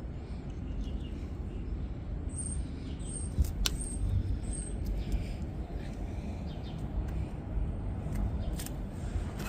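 A steady low rumble with a few sharp clicks about three and a half seconds in, and a bird chirping four short high notes around the middle.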